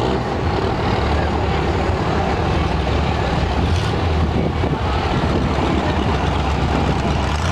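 Pickup truck engines running with a steady low drone as two pickups chained tail to tail pull against each other in a truck pull.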